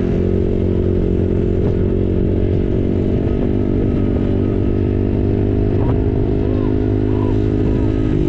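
Small dirt bike's engine running steadily at an even cruising speed, close to the microphone, with a slight change in pitch near the end.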